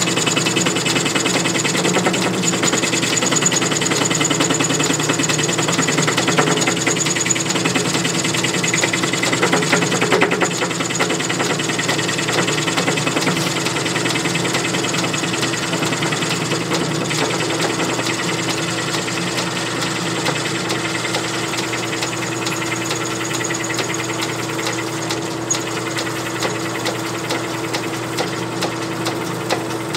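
Small metal lathe running under load, its tool taking an interrupted cut into spinning aluminium round stock to face a flat side: a steady hum with rapid, rhythmic chatter as the tool strikes the work each revolution. It gets a little quieter about ten seconds in.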